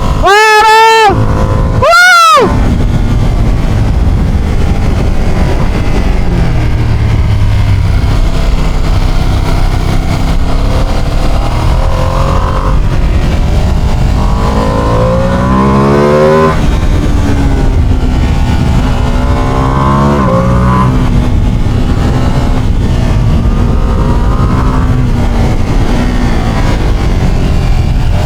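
Ducati Panigale sport bike heard from the rider's seat, its exhaust running loud and steady under a constant rush of wind. The engine note rises sharply as the bike accelerates, several times: a few quick swells in the first couple of seconds, then longer climbs around the middle of the ride.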